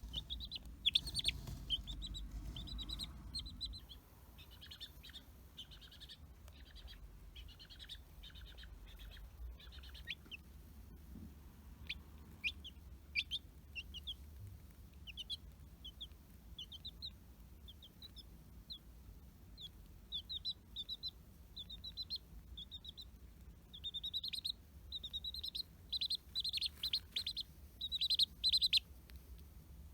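A three-day-old chick peeping: runs of short, high peeps, thickest near the start and again near the end, sparser in between.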